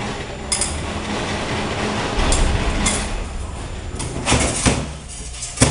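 Metal parts of a Turbo Hydramatic 350 automatic transmission scraping and clicking as a snap ring is pried out by hand, with several sharp metallic clicks and the loudest click near the end.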